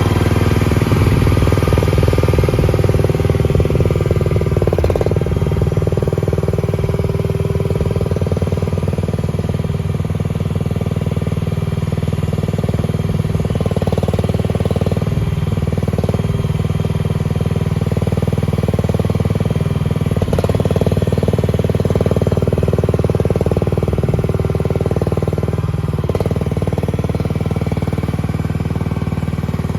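Gasoline engine of an EG360T skid steer loader running steadily, with a few brief changes in its note.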